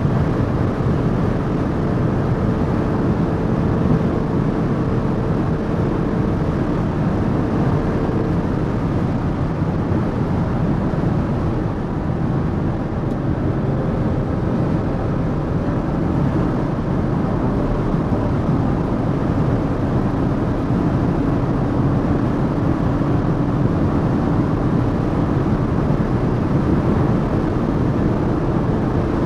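Audi SQ5's 3.0 TFSI V6 engine running under a steady rush of wind and tyre noise at high speed. The engine note holds steady, shifting only slowly, with no gear changes.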